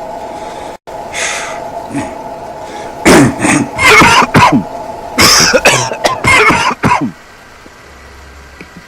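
A person coughing and clearing their throat in a run of loud, rough vocal bursts that starts about three seconds in and stops about four seconds later, over a steady hum.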